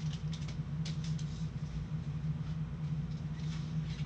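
Football trading cards flipped through quickly in gloved hands: scattered faint flicks and slides of card on card, over a steady low hum.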